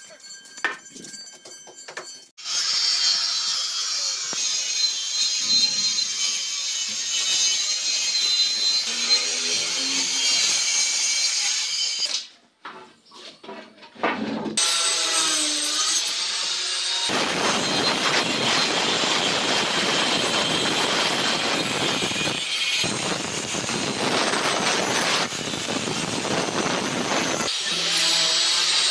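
Handheld electric woodworking tool running and cutting into timber boards in long stretches, starting suddenly a couple of seconds in, breaking off for about two seconds near the middle, then coming back heavier with a short dip partway through.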